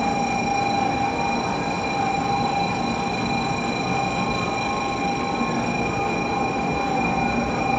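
Shinkansen train noise: a steady hum and rush with a constant high whine that neither rises nor falls.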